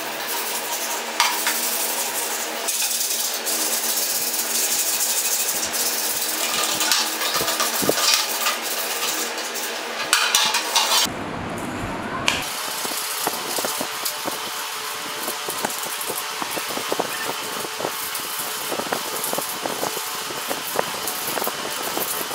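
Hand sanding: sandpaper scratching over a Royal Enfield Bullet's fuel tank, then, after a change about eleven seconds in, over small metal parts in many short, quick strokes.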